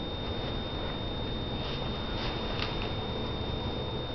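Steady hiss with a thin high whine, and a few faint clicks about halfway through from a schnauzer's claws tapping on a wooden floor.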